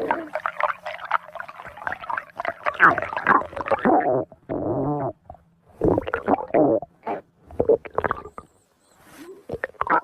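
Cartoon stomach-growl sound effect, pitched up: a run of irregular gurgles and growls, broken by short pauses about halfway through and again near the end.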